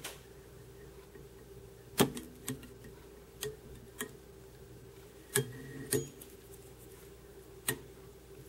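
Light, irregular clicks and taps from a whip finisher tool and thread bobbin being worked at a fly-tying vise while the thread head is tied off, about eight in all, the one about two seconds in the loudest. A faint steady hum lies underneath.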